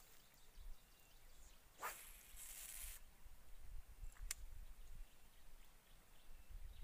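Faint sound of a lure being cast with a spinning or casting rod: a quick swish about two seconds in, then line hissing off the reel for under a second, and a single sharp click a little later.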